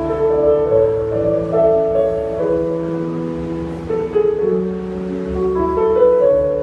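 Instrumental music: a slow melody of held notes over a low bass line.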